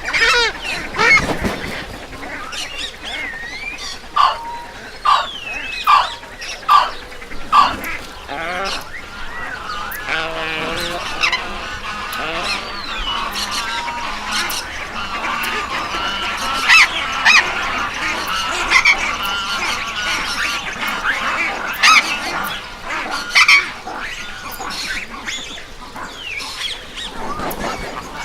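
A flock of geese honking. A handful of separate honks comes first, then many birds call over one another through the middle, thinning out again near the end.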